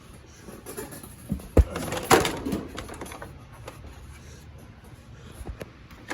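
A few scattered knocks and clicks from handling the dryer during disassembly, the loudest about two seconds in, then faint ticks.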